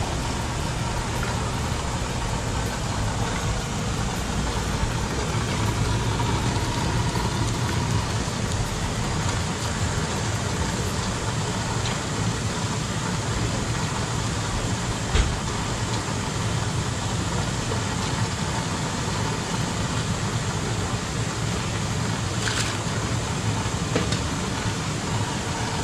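Live-bait shrimp tank's aeration system running, water churning and bubbling: a steady low hum under an even hiss. A single sharp knock about halfway through.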